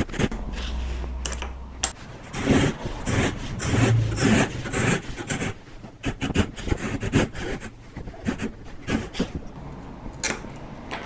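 Japanese replaceable-blade crosscut hand saw cutting through a small piece of softwood in quick back-and-forth strokes, its blade held flat against a guide board for a flush cut. The strokes come thickest a couple of seconds in and thin out as the cut finishes, with a single knock near the end.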